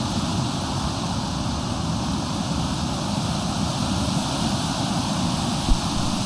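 Steady, loud rush of a waterfall, an even wash of falling water with no break. A brief low thump shows up near the end.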